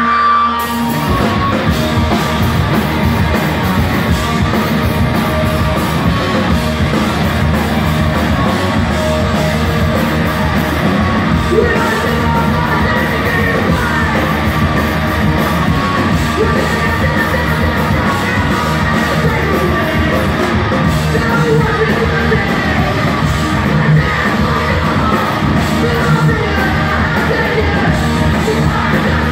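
Live punk band playing loud: distorted electric guitars, bass and drums with a singer's vocals over them. The full band comes in about a second in, after a held guitar note.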